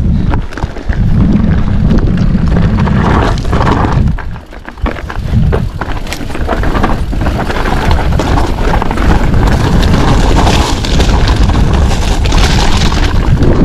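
Wind buffeting an action-camera microphone on a Commencal Meta TR 29 mountain bike riding down a rocky trail, with the tyres and the bike clattering over the rocks. The noise drops sharply for about a second some four to five seconds in, then comes back.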